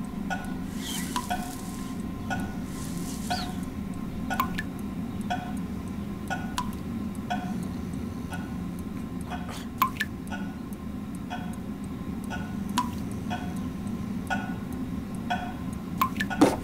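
A low steady hum with faint short tones recurring at a regular pace, about every two-thirds of a second, and a few sharp clicks, the loudest just before ten seconds in and near the end.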